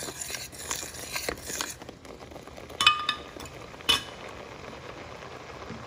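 A metal spoon stirring a boiling ground-coconut curry base in a pan, scraping and clicking against the pan, then two ringing metal clinks about a second apart. After that the curry bubbles steadily.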